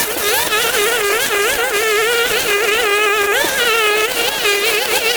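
Background music: a single melody line with quick sliding, ornamented notes that hover around one pitch.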